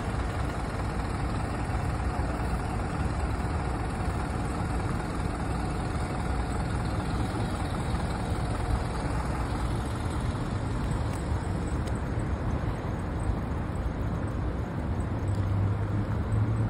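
Steady urban road traffic: vehicles running along the street, with a deeper engine hum joining near the end.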